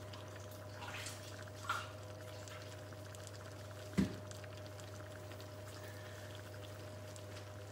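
Faint sizzle of vegetable pakoras frying in a pan over a steady low hum, with one light click about four seconds in.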